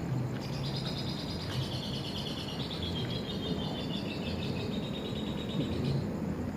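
A high-pitched, rapidly pulsed trilling call from a night creature, starting about half a second in and running for about five and a half seconds before stopping, over a steady low background rumble.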